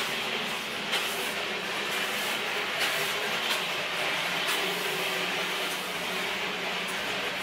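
Steady mechanical hum and hiss of shop machinery, with a few light metallic clinks as an open-end wrench works the hydraulic fittings on an excavator final drive motor.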